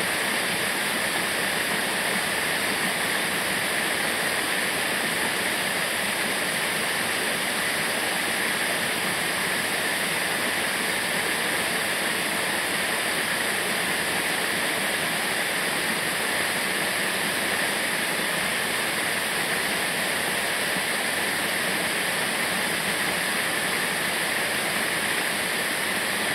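Waterfall: water falling and rushing without a break, at a constant level.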